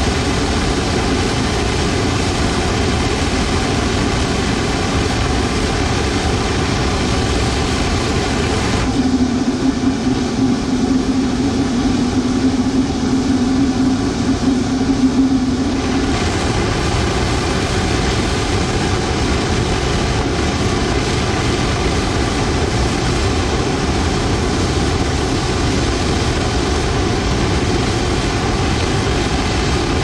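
Blower-fed gas burner firing a long open flame, with a steady jet-like rushing noise. About nine seconds in, the sound turns to a lower, wavering rumble with a strong low hum for about seven seconds, while the flame runs shorter, then it returns to the steady rush.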